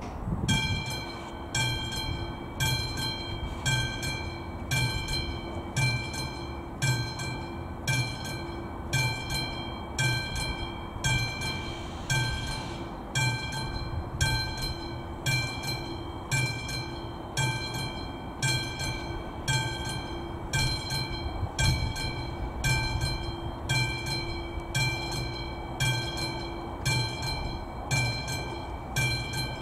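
Classic mechanical bell of an AŽD 71 level-crossing warning signal starting about half a second in and ringing with steady, even strikes, about three every two seconds, each leaving a ringing tone: the crossing warning for an approaching train.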